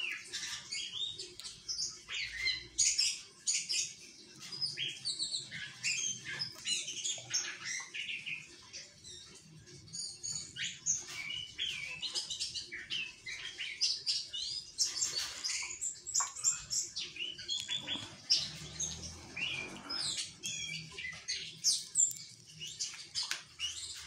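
Orange-headed thrush (anis kembang) singing a continuous rolling song of rapid, varied chirps and short whistles, with hardly a pause.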